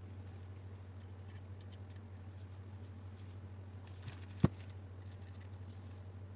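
Light clicks and taps of small metal grinder parts being handled during reassembly, with one sharp click about four and a half seconds in, over a steady low hum.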